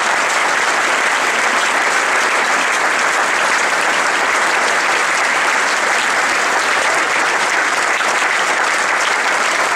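A large audience and the cast on stage applauding: dense, steady clapping that keeps up without a break.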